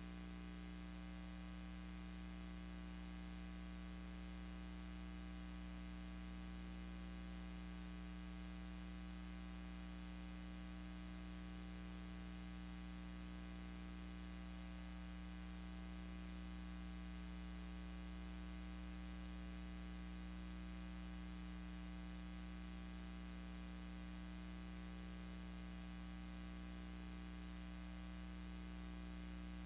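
Steady electrical hum with a constant hiss, unchanging throughout; no other sound.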